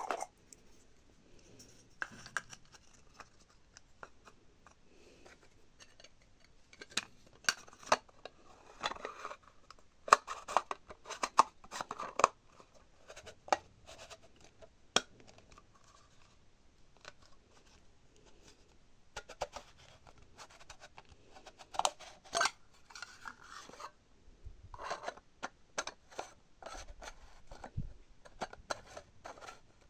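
Small parts of a repaired light unit being handled and fitted back together: scattered sharp clicks and taps with short scraping sounds, busiest about ten to twelve seconds in and again a little past twenty seconds.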